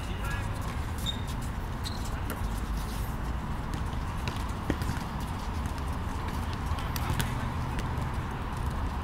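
Wind rumbling on the microphone, with scattered light knocks and thuds from play on artificial turf, one sharper knock a little over halfway through.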